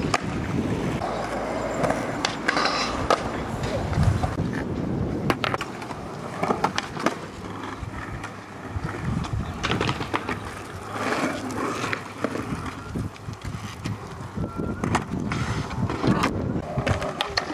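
Skateboard wheels rolling on concrete, broken repeatedly by sharp clacks of the board popping and landing.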